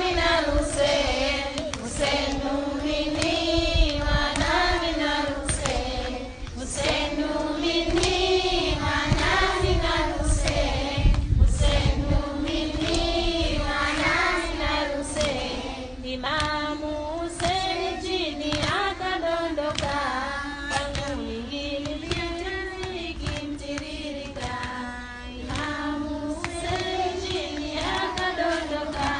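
A chorus of young children chanting a noha, a Shia mourning lament, in unison without instruments, with rhythmic matam chest-beating beneath the voices.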